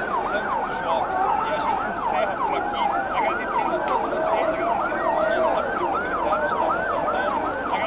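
Several emergency vehicle sirens sounding at once in a fast rising-and-falling yelp, about three sweeps a second, their cycles overlapping.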